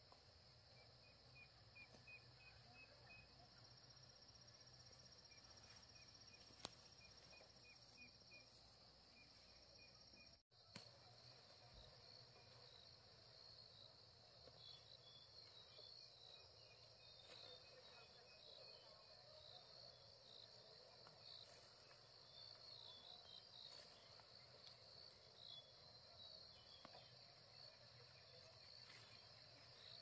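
Faint, steady high-pitched chirring of insects, likely crickets, with rows of quick small chirps over it. The sound cuts out for an instant about ten seconds in.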